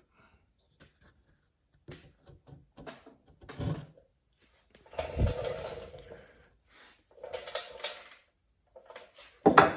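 Hand-filed saw chain cutter scraping across wood and peeling chips, in a few short clicks and scrapes. Then come two longer rasping scrapes, the first beginning with a dull thud. This is a test of how the freshly filed tooth bites.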